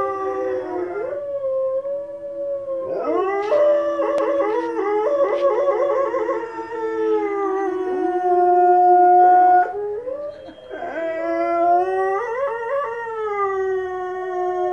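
Presa Canario dog howling in long held howls, joined by wolves howling from a television; several howls overlap a few seconds in, and after a short break about ten seconds in the dog starts another long howl.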